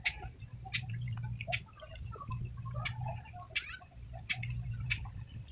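Water dripping and splashing in small, irregular drops, as from a wet cast net lifted out of the water, over a low rumble that swells and fades.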